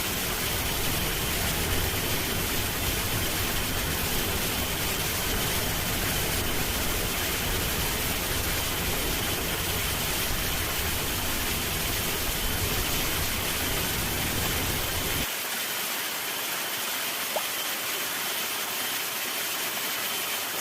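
Waterfall rushing, a steady full hiss of falling water; the deep rumble under it drops away abruptly about three-quarters of the way through.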